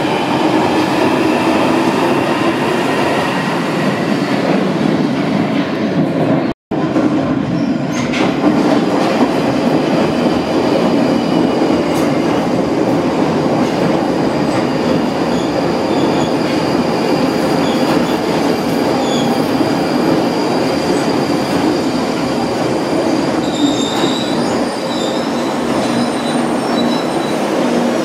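London Underground 1995 Stock tube train running past close by, a steady rumble of wheels on rail with high steel wheel squeal over it. The sound drops out for an instant about six and a half seconds in.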